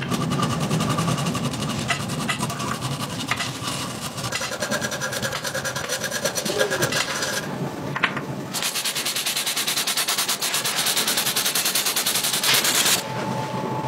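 A rotary brass wire brush on a power drill scrubbing paint-stripper residue off metal castings: a dense, rapid rasping. About 8.5 seconds in, it gives way to a steady hiss that stops just before the end.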